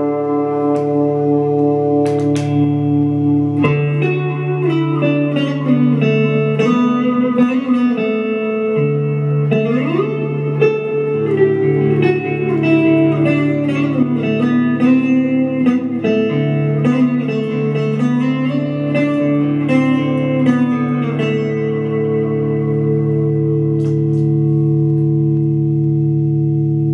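Electric guitar, a Fender Stratocaster played through effect pedals into a Fender Champion 100 amplifier: a melodic line with string bends over long-sustaining notes, settling about three-quarters of the way through into a single held chord that rings on.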